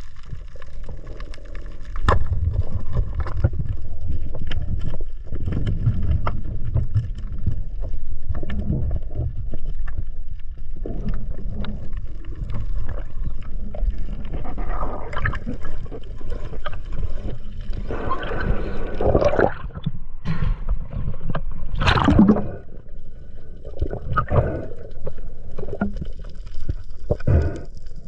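Underwater sound of a freediver moving along a reef: a continuous muffled rumble of water with small clicks and swells of bubbling and water rush. A sharp snap comes about three-quarters of the way through.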